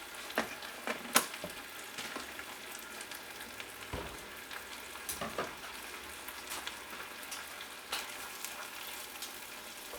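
Spicy sweet-and-sour chili sauce sizzling in a hot pan as it heats toward the boil, with a few sharp clicks scattered through, like a utensil knocking the pan while stirring.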